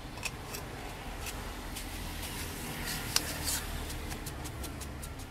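Light metal clicks and taps of a steel steering-shaft tube being slid and turned inside short steel sleeves, with one sharper click about three seconds in, over a steady low hum.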